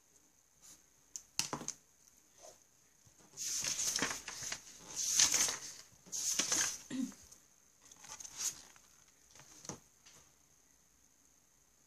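Pencil scratching on workbook paper in three longer bursts of strokes, about three to seven seconds in, with a few light taps and clicks before and after.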